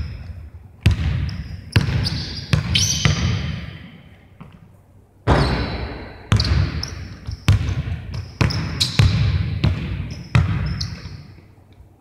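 A basketball bouncing and thudding on a gym court about once a second at irregular intervals, each impact echoing in the large hall, with short high squeaks among the bounces.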